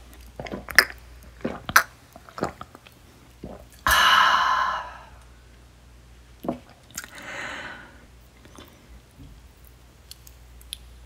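Close-miked mouth sounds of a shot of plum liquor being sipped and swallowed, with several sharp wet clicks. About four seconds in comes a loud breathy exhale after the liquor, then a softer one a few seconds later.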